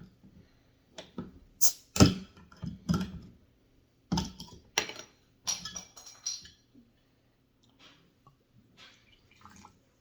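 Soda being poured into small cups: a run of irregular splashes and knocks, the loudest about two seconds in, thinning out after about seven seconds.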